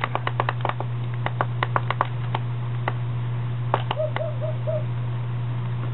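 Computer mouse clicking irregularly, about twenty sharp clicks, over a steady low electrical hum, as the color replacement brush is worked over the picture. About four seconds in come four short, soft chirps.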